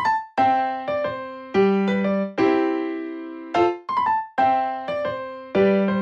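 Background music: a light keyboard tune with a piano sound, its notes and chords struck and left to fade, a new one about every half second.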